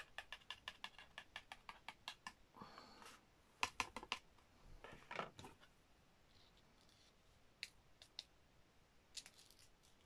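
Quick, light tapping, about five taps a second for the first two seconds, as paper is tapped to knock loose embossing powder off inked pieces into a tray. This is followed by short paper rustles and a few scattered light clicks.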